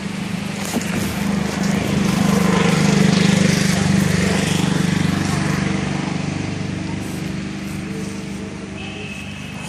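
An engine hums steadily, swelling to its loudest about three seconds in and then slowly fading away.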